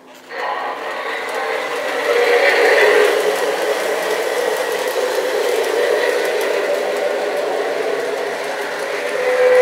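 Lionel F3 ABA O-gauge model diesel locomotive set starting off suddenly and running on three-rail track: a steady motor whir with wheels rumbling on the rails. A horn begins to sound right at the end.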